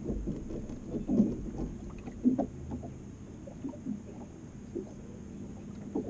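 Small waves slapping and knocking against the hull of a fishing boat, with a low wind rumble on the microphone. A few sharper knocks come through, the loudest about a second in and again about two seconds in.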